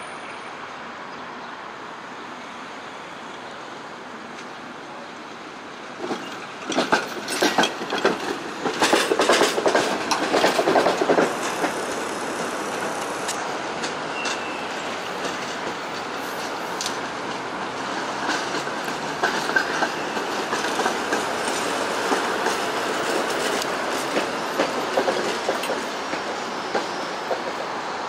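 Articulated tram passing close by. After a quieter start, its wheels clatter loudly over rail joints and points for several seconds, then settle into a steady rolling rumble with occasional clicks as it moves on.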